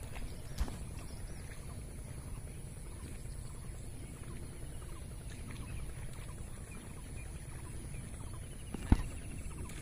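Open-air ambience: a steady low rumble with a constant high-pitched whine, faint bird chirps, and one sharp knock about nine seconds in.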